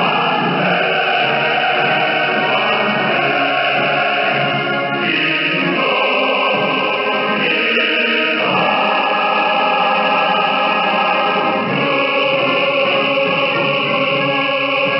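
Choral music with a choir singing, received off a shortwave radio broadcast: thin, narrow-band sound with the highs and deep lows cut away.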